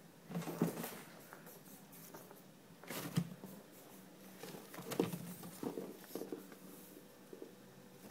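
Irregular bursts of rustling and scuffing in the hay and bedding of a guinea pig cage as guinea pigs shift about and a hand moves among them. The loudest scuffs come about half a second in, around three seconds in and around five seconds in.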